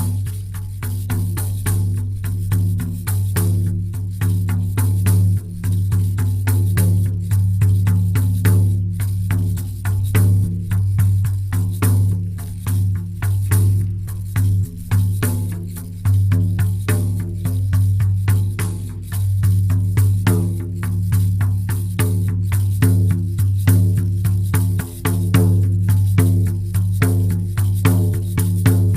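Shamanic frame drum beaten in a steady, fast rhythm, about three to four strokes a second, each stroke a deep booming tone that rings into the next.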